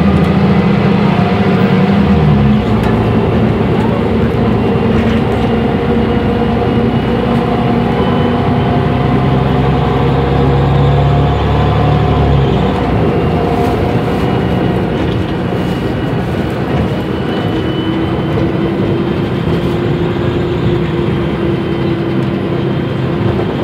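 Inside a Mercedes-Benz O345 Conecto city bus under way: the diesel engine and Voith automatic drivetrain run steadily with a deep drone and higher whining tones. The deep engine note falls away about twelve seconds in, and a fainter whine carries on after it.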